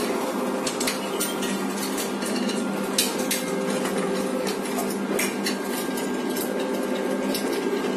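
Sheet-steel parts of a printer stand clinking and knocking against each other as a leg bracket is fitted into the base frame by hand, with the loudest knock about three seconds in, over a steady hum.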